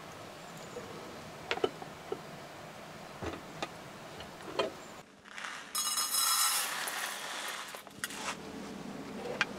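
Small clicks and knocks as a compact rice cooker's lid and inner pot are handled. About two thirds of the way in, something is poured into the pot for about two seconds with a rushing hiss.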